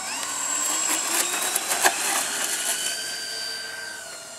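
Twin motors and propellers of an RC B-26 model bomber winding up and running at high power on a takeoff run, a steady high whine. The pitch dips a little near the end, with a few brief crackles in the first half.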